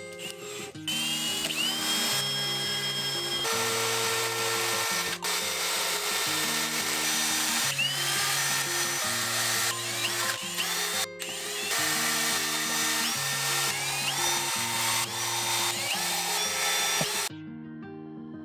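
Milwaukee M18 Fuel cordless drill with a 3 mm bit drilling holes through a clear plastic sheet, its motor whining up to speed several times and stopping near the end, over electronic background music.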